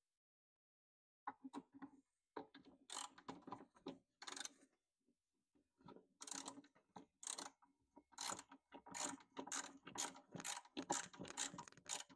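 Ratcheting hand screwdriver clicking as screws are driven into a shelf. It starts about a second in with short, broken runs of clicks, then from about halfway becomes a steadier run of ratchet strokes, two or three a second.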